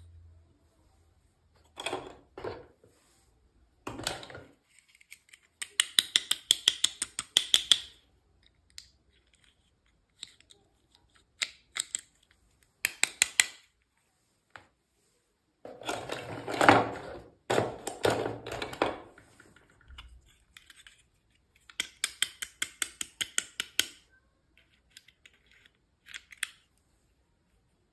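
Unboxing handling sounds: packaging and small parts being worked by hand. There are two runs of rapid, even clicking, about eight clicks a second, and a denser stretch of noisy handling around the middle.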